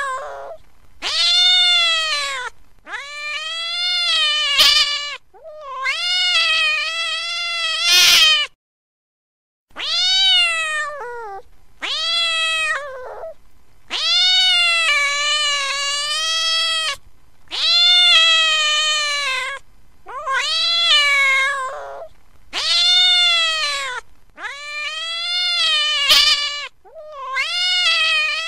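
Domestic cat meowing again and again: about a dozen long, drawn-out meows, each one to three seconds, with a short silence about nine seconds in.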